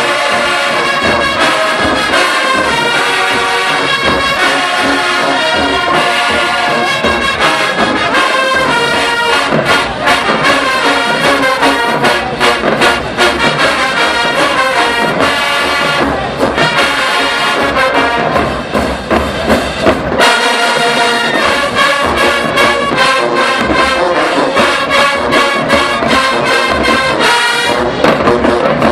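HBCU marching band playing loud, with the brass section sounding full chords over drums hitting sharply.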